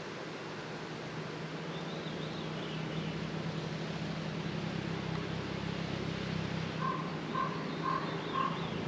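Honeybees buzzing around an open hive during a frame inspection, a steady low hum that swells a little after the first couple of seconds. A bird calls faintly, with about five short repeated notes near the end.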